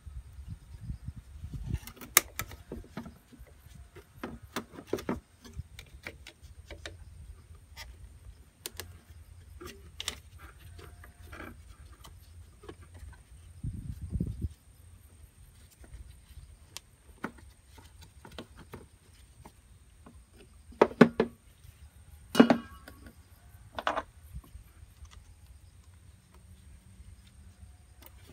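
Pliers and hand tools clicking and knocking on metal while hose clamps and hoses are worked off a Honda Dio scooter's carburetor: scattered light clicks, with a few louder sharp clicks in the last third.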